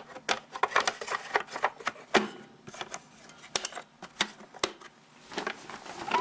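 Irregular clicks and light knocks of a Hoover Decade 800 upright vacuum cleaner being handled, its plastic parts tapping and clattering.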